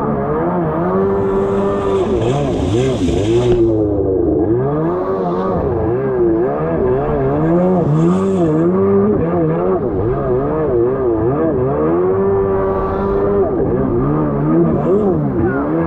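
Two-stroke jet ski engine running hard, its pitch rising and falling over and over as the throttle is worked through turns, with bursts of water spray hissing against the hull.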